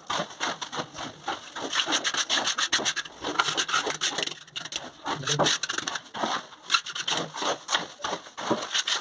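Rough scraping strokes repeated rapidly and unevenly, a hand tool rubbing back and forth against a hard, gritty surface.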